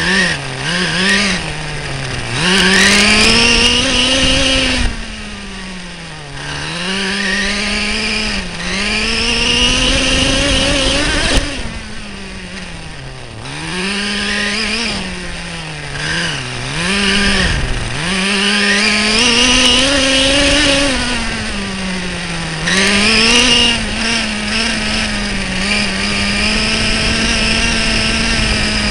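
Small two-stroke nitro glow engine of an RC monster truck, picked up close by the truck's onboard camera, revving up and down over and over as the truck is driven, with several short drops back toward idle. Its exhaust was damaged in an earlier crash.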